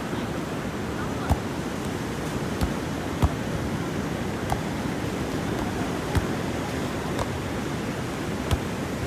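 Steady sound of breaking surf, with a soccer ball struck about seven times, a sharp thud roughly every second or so, as two players volley it back and forth without letting it touch the sand.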